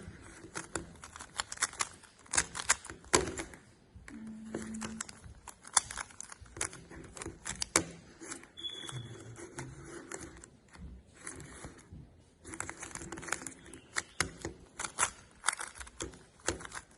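A plastic 3x3 Rubik's cube being turned by hand: irregular runs of quick clicks and clacks as its layers rotate, with short pauses between sequences of moves.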